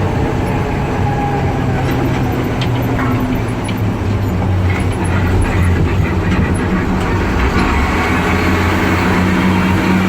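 Cab interior of an M923A2 5-ton truck under load in a right-hand turn: the Cummins six-cylinder diesel drones steadily, with scattered sharp ticks and a scraping rattle from the drivetrain. The owner takes the rattle for a bad rear transmission mount.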